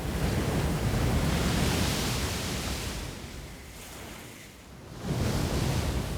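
Heavy seas: waves rushing and crashing in a long surge, easing off, then surging again about five seconds in.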